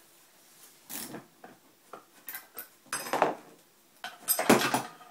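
Hand tools and bolt hardware clinking and knocking against an aluminium angle bar on a wooden workbench. A few irregular metallic knocks, the loudest about three seconds in and a clattering run just after four seconds, while a socket wrench is worked on the bolts.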